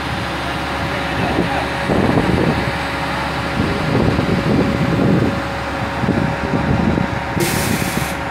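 Mobile crane's diesel engine running steadily, swelling unevenly under load, with a short burst of air hiss near the end.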